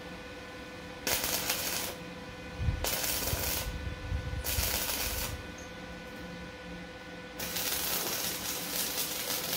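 Electric arc welder striking and holding an arc to tack-weld a steel rail: the arc crackles and sputters in three bursts of one to three seconds each, the longest near the end.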